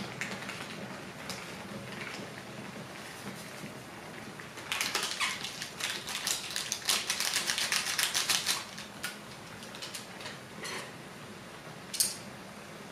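Udon broth simmering and bubbling in a thin aluminium pan on a gas burner. For about four seconds midway, a plastic soup packet crinkles and rattles as it is squeezed and shaken out over the pan. A single sharp click comes near the end.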